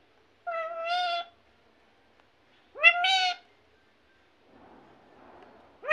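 Indian ringneck parakeet calling twice, each call a loud, high, drawn-out cry of about a second, the second about two seconds after the first, with the start of a third at the very end.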